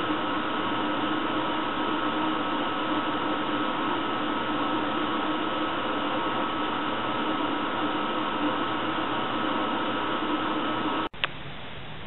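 Steady hiss with a constant high hum through it, like machine or room noise. About eleven seconds in a sharp click cuts it off, and a quieter plain hiss follows.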